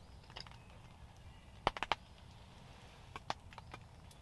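Scattered short, sharp clicks or taps in a quiet background: one about half a second in, a quick run of three near two seconds, and a few more just after three seconds.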